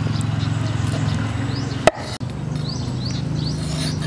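A heavy cleaver chopping once through a steak of large freshwater catfish (pla khao) onto a wooden chopping board. The single sharp chop comes about two seconds in, over a steady low hum.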